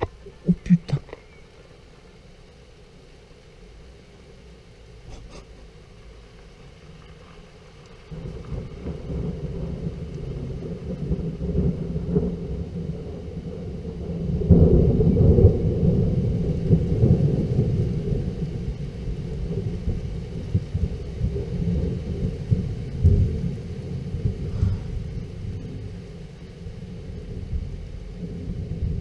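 Thunder from a lightning strike about 1.7 km away. A low rumble comes in about eight seconds in and swells to its loudest about halfway through, then keeps rolling and grumbling.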